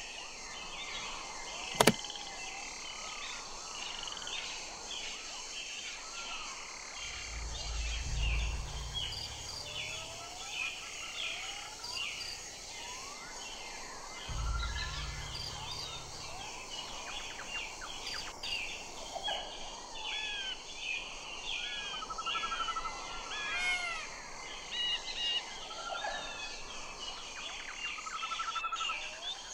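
A dense chorus of many birds chirping and whistling, with short rising and falling calls overlapping throughout. There is a single sharp click about two seconds in, and two low rumbles partway through.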